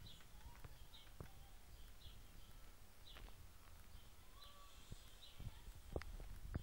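Near silence with faint, short bird chirps every second or so and a few soft clicks.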